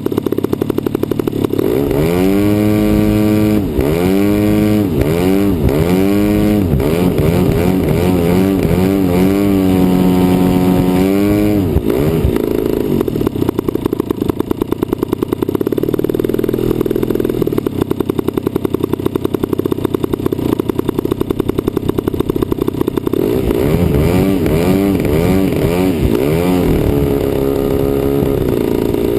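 DLE 55cc single-cylinder two-stroke gasoline engine of a large model airplane running, its pitch swinging up and down again and again in the first part and again near the end, steadier in between.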